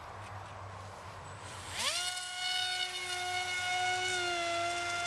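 ElectriFly Ammo 3180 kV in-runner brushless motor and propeller on an RC plane throttling up: a whine that rises sharply about two seconds in, then holds as a steady high-pitched whine, dropping slightly in pitch about four seconds in.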